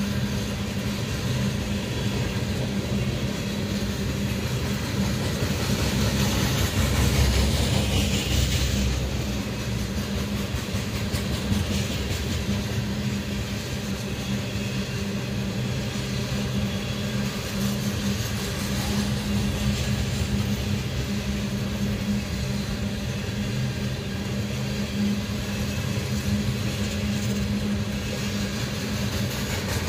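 Freight train of ethanol tank cars rolling steadily past, the wheels rumbling on the rails under a constant low hum, swelling louder about seven to nine seconds in.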